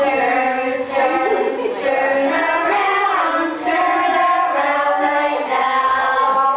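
Voices singing a simple children's song in a slow melody of long held notes, played back from a video of a toddlers' music-and-movement class.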